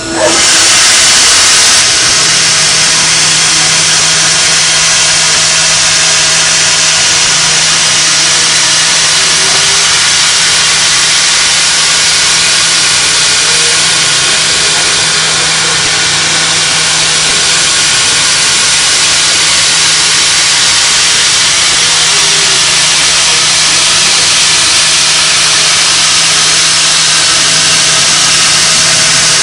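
CNC milling machine running: a loud, steady hiss with a constant low hum underneath.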